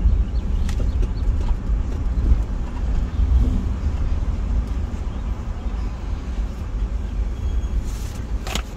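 Low engine and tyre rumble of a car heard from inside the cabin as it drives slowly, easing off as the car comes to a stop near the end, with a short click just before the end.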